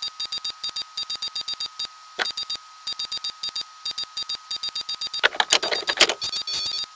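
Typewriter-style computer sound effect: rapid electronic clicks ticking out in even runs, about nine a second, with short pauses between runs, over a faint steady high tone. A few louder, harsher hits come about five seconds in.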